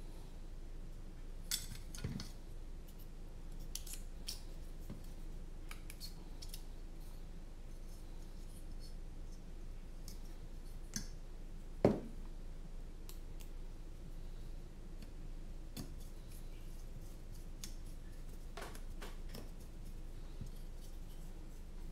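Scattered small clicks and clacks of carbon-fibre drone frame parts, standoffs and screws being handled and fitted together with a small screwdriver, with one sharper knock about twelve seconds in.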